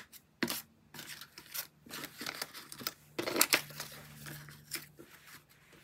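Paper banknotes being handled by hand: crisp rustles and flicks of dollar bills as a stack is sorted and straightened, loudest about three seconds in.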